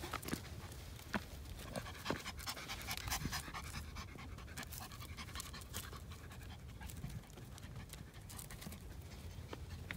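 Small curly-coated dog panting from the exertion of climbing rocky steps, louder in the first few seconds, with light taps and scrapes of footsteps on the stones.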